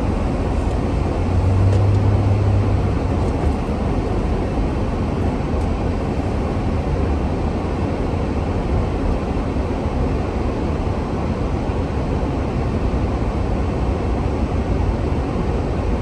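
Steady road and engine noise heard from inside a car driven slowly on a slippery, snowy road, with a brief low hum about a second and a half in.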